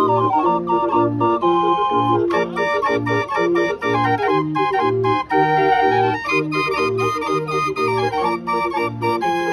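Hand-cranked barrel organ built by Orgelbau Stüber of Berlin playing a tune: a pipe melody over a steady oom-pah bass.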